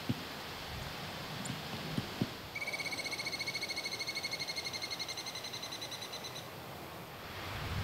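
A squirrel chattering in one long, fast, even trill that lasts about four seconds, starting a little over two seconds in and slowly fading. A few soft thumps come before it.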